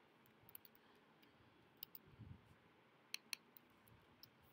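A handful of faint clicks from working a laptop's keyboard and trackpad, two of them in quick pairs.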